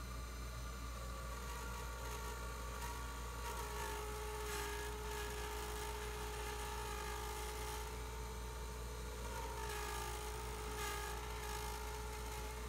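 Harbor Freight wood lathe running with a turning chisel cutting a spinning bloodwood pen blank: a steady motor whine under the hiss of the cut, which swells a few times as the tool bites.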